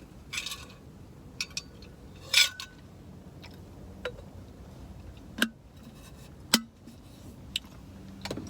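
Ice cubes clinking in a cup: a handful of scattered sharp clicks, the loudest about two and a half seconds in.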